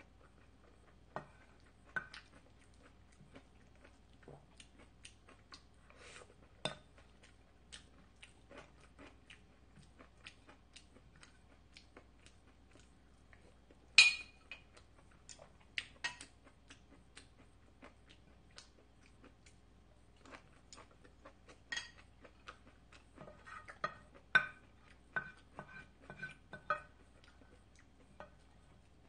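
Light, scattered clinks and taps of eating utensils against dishes, with soft chewing in between. One sharp clink comes about halfway through, and a cluster of small clinks comes near the end.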